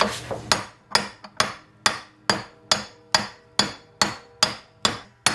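Steady metal-on-metal hammer blows, about two a second, each followed by a short metallic ring. A chilled bearing race is being driven into a 1965 Ford Falcon front drum brake hub clamped in a vise.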